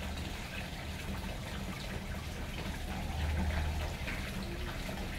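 Water spilling steadily from a small sheet-waterfall spillway into a garden fish pond, a continuous splashing of falling water.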